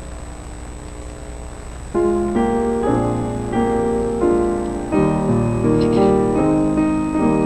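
Piano begins about two seconds in, playing slow, sustained chords that change roughly every half second, as the introduction to a sung solo. Before it, a low steady room hum.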